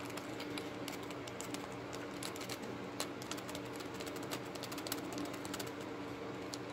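Faint, irregular clicks and taps of a die-cast toy monster truck's plastic wheels and body being handled and turned over, over a steady low hum.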